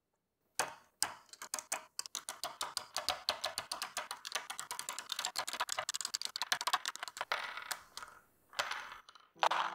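3D-printed plastic screws being snapped off the small tabs of their printed support plate and dropped onto a wooden workbench: a fast, uneven run of small plastic clicks and clatters that stops shortly before the end.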